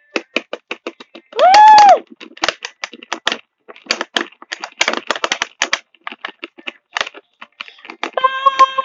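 Rapid, irregular clicking and clinking of ice cubes and a plastic toy figurine knocking against each other and the ceramic ramekin as the toy is pushed into the ice water. About a second and a half in, a short squeal of a voice rises and falls.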